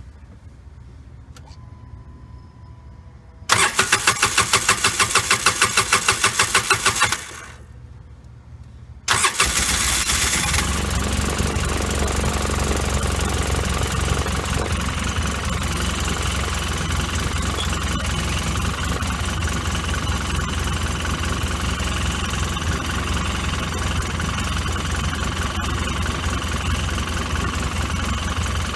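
Polaris 800 engine cranking on the electric starter with a rapid, even pulsing for about four seconds, stopping, then catching on a second try about nine seconds in and settling into a steady idle. The idle is the rough idle that the owner is chasing, on a machine that also has no power.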